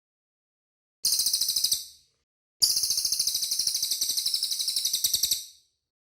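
Cililin bird singing two fast, tightly packed trills of rapidly repeated high notes: a short trill about a second in, then a longer one of about three seconds.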